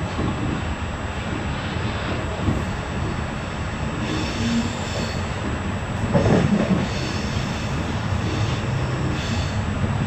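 Moving passenger train heard from inside: steady rumble of the wheels running on the rails, with a louder swell about six seconds in.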